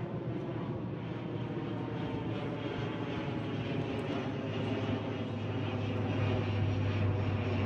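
A steady engine drone, growing louder near the end.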